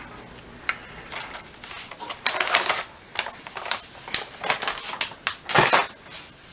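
Irregular light clicks and clinks of glassware and kitchen items being handled, including a small glass cup set down on a metal kitchen scale. The loudest knock comes near the end.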